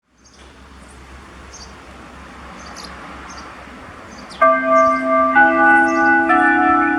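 Municipal disaster-prevention radio loudspeaker beginning its time-signal chime melody: electronic bell tones start about four seconds in, one new note roughly every second, each ringing on under the next. Before it, only faint background noise with small high chirps repeating at a regular pace.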